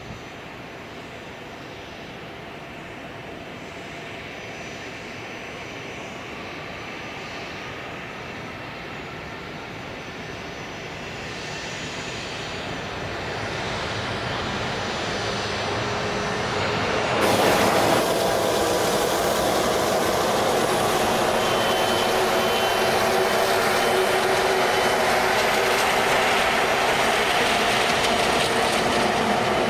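Jet engine noise from an Airbus A320-family airliner coming in to land, a steady rushing sound that builds gradually, jumps louder about halfway through, then holds.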